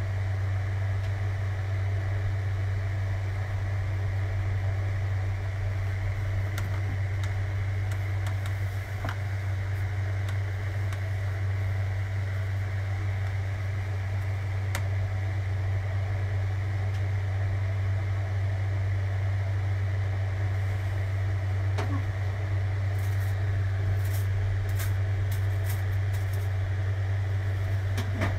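A fan running with a steady low hum, with a few faint clicks.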